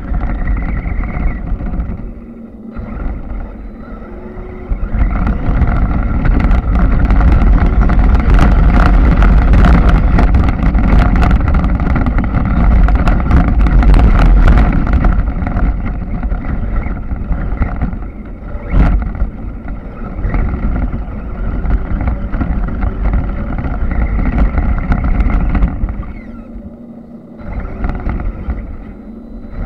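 Radio-controlled off-road car driving over rough ground, heard from a camera mounted on it. A steady motor sound is mixed with a heavy rumble and crackling from the tyres and chassis, plus one sharp knock about two-thirds through. It eases off near the end.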